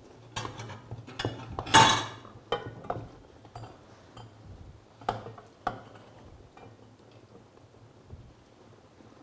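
Metal spoon clinking and knocking against a saucepan and pan, a string of sharp clinks with the loudest, briefly ringing, about two seconds in; two more knocks a little past the middle, then only quiet handling.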